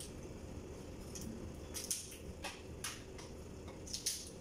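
Scattered light clicks and cracks as boiled crabs are broken apart and picked by hand, with a few small knocks against plates, over a steady low hum.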